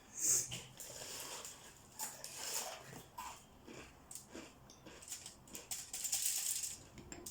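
Quiet kitchen handling sounds as cookie dough is scooped and placed: short soft scrapes and a few light clicks and taps, strongest about two and a half seconds in and again about six seconds in.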